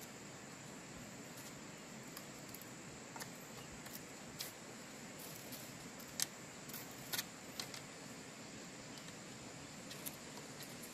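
Thin bamboo slivers being worked and peeled by hand: scattered small sharp clicks and snaps, the sharpest about six seconds in, over a steady high-pitched hiss.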